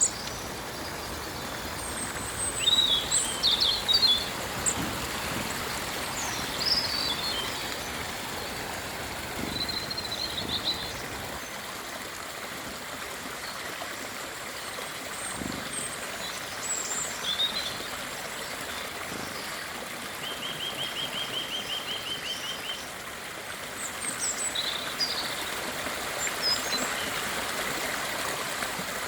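Small birds chirping in short, scattered high calls, with one rapid trill of about five notes a second a little after the middle, over a steady rushing hiss.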